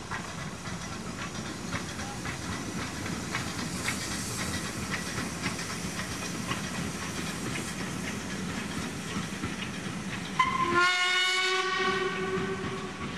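Ivatt Class 2MT 2-6-2 tank locomotive No. 41241 running past with its coaches, with a steady hiss and light clicking of wheels over rail joints. About ten seconds in, its steam whistle gives one loud blast of about two and a half seconds, rising slightly in pitch as it opens.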